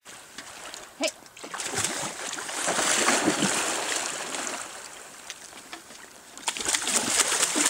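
Seals splashing in the water as they dive and surface: a long rush of splashing from about a second and a half in, dying away, then rising again near the end. A brief sharp sound about a second in.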